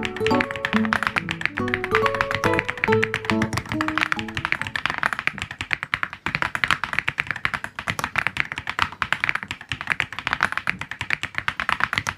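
Fast typing on a mechanical keyboard with PBT keycaps, a dense run of key clacks. Music with a melody plays over the first few seconds and stops about four and a half seconds in, leaving the typing alone.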